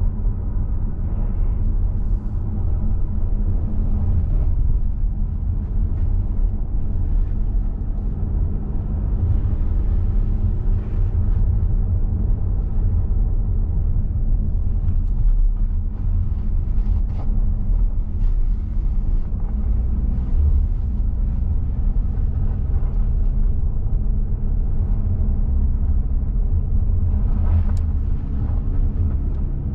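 Car driving along a road: a steady low rumble of engine and tyres, with faint light ticks now and then.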